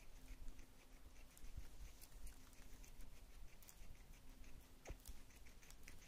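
A budgie and a guinea pig nibbling lettuce leaves: faint, quick, irregular crisp ticks and crunches, with one sharper tap about five seconds in.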